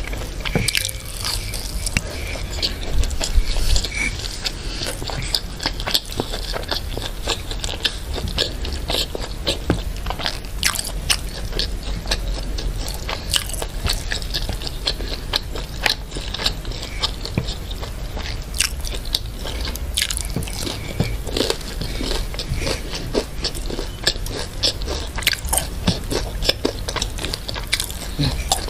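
Close-miked chewing of crispy fried duck pieces: a dense run of sharp, crackly crunches with wet mouth sounds.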